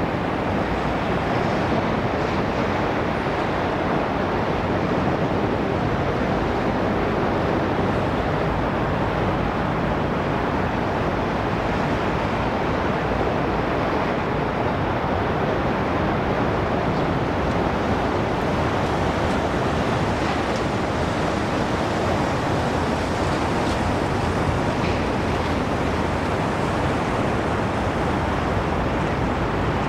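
Steady, even rushing noise of wind and harbour water, with no distinct events.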